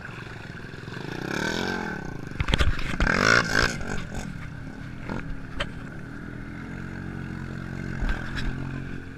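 ATV engine running while the quad sits nearly submerged in deep muddy water, kept alive through a raised snorkel pipe, its pitch rising and falling as the wheels churn the water. Loud bursts of splashing and sloshing about two and a half to three and a half seconds in, and again briefly near the end.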